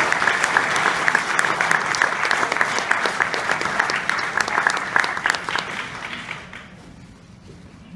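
Audience applauding, a dense run of many claps that thins and fades out about six and a half seconds in.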